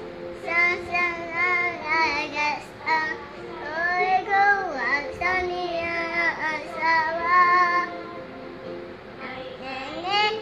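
A two-year-old girl singing a nursery rhyme in short phrases, with held and sliding notes and brief pauses between lines.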